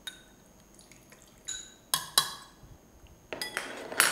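A spoon clinking against a glass bowl and a stainless-steel mixer-grinder jar as soaked rice is spooned in: a few sharp clinks that ring briefly, then about a second of rougher scraping noise near the end.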